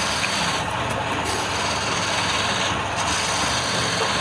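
Wood lathe running steadily with a low motor hum, while a tool works the spinning wood: a hiss that swells and eases every second or so.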